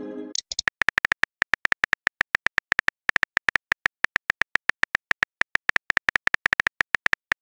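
Virtual phone keyboard typing clicks from a texting-story app, a rapid even run of about eight clicks a second. At the very start the tail of a message chime fades out, and a short send whoosh comes about half a second in.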